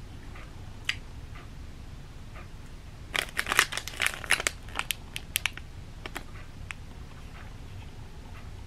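A packaged fruit bar's wrapper crinkling as it is handled, with a dense run of crackles about three seconds in lasting two to three seconds, and a few single crackles before and after.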